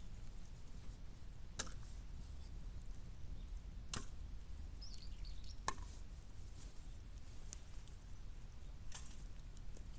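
Bamboo burning in a fire in a metal can, giving four sharp cracks a couple of seconds apart over a low steady rumble. A bird chirps faintly in the middle.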